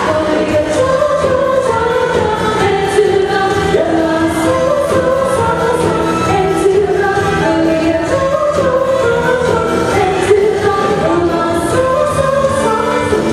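Live amplified pop band playing with several female singers singing together over guitars, keyboards and drums.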